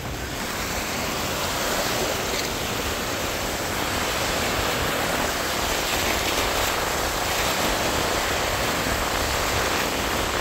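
Gulf of Mexico surf: small waves breaking and foam washing around close to the microphone, a steady hiss of moving water.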